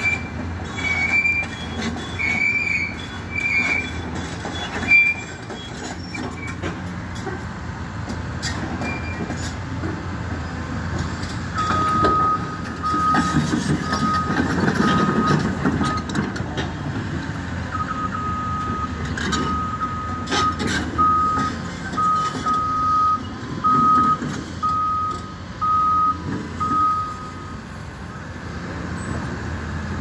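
Demolition excavator's diesel engine running steadily, with a reversing alarm beeping at an even pace, about once a second, from about twelve seconds in until near the end. A few short high chirps sound in the first few seconds and a few sharp knocks come here and there.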